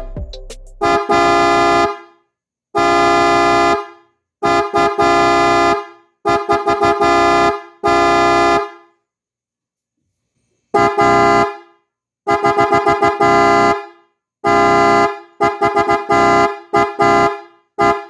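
PIAA Maruko super low electric car horn sounding in a series of honks: some held for about a second, others in quick rapid taps. There is a pause of about two seconds partway through.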